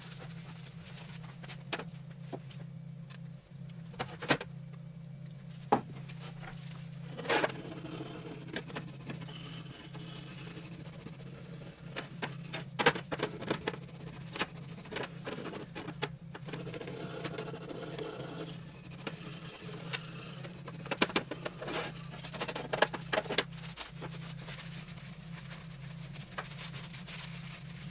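Scattered light clicks and knocks of hand tools and metal parts being handled, in irregular clusters over a steady low hum.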